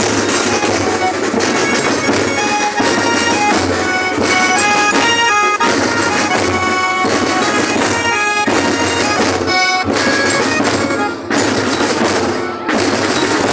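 Marching music with drums beating a steady rhythm under a shrill, sustained wind melody that moves from note to note.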